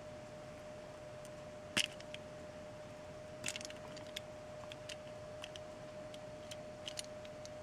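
Faint scattered clicks and small scrapes from a snap-off utility knife and fingertips working the outer insulation off a thin coaxial receiver antenna wire. A faint steady tone sits underneath.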